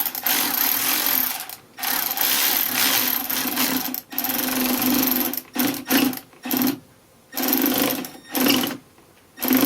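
Cordless power driver running in repeated trigger bursts, tightening a fastener on the air intake: three long runs of a second or two, then several short pulses, and more short bursts near the end as it snugs down.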